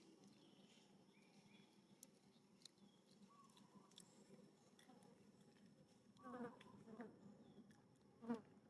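Faint insect buzzing over quiet outdoor ambience, with scattered light ticks and two short pitched calls, the louder one near the end.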